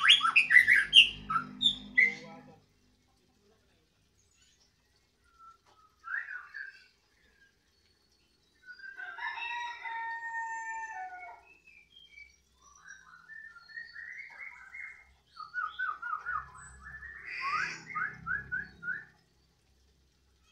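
Caged white-rumped shama (murai batu) singing loud song in phrases: a dense burst of fast chirps at the start, then after a pause separate whistled phrases, including a longer held whistle near the middle and a rapid trill of repeated notes near the end.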